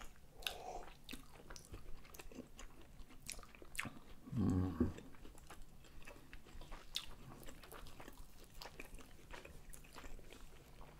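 Close-miked chewing and biting of soft curd-filled pancakes, with many small wet mouth clicks and smacks. About four and a half seconds in there is a brief, louder low hum from one of the eaters.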